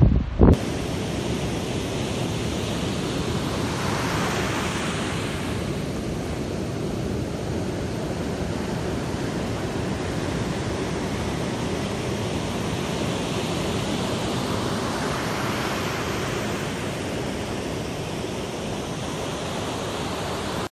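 Ocean surf breaking on a sandy beach: a steady wash of noise that swells as waves come in, about four seconds in and again around fifteen seconds. Brief wind gusts hit the microphone at the very start.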